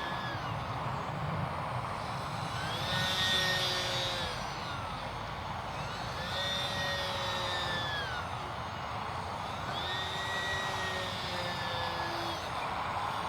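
Small electric RC model plane's brushless motor and propeller whining as it flies tight circles, passing by about three times; on each pass the whine swells, then drops in pitch as it moves away.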